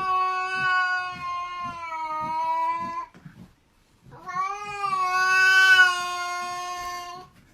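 A cat giving two long, drawn-out yowls, each several seconds long and sagging slightly in pitch, with a short break between them.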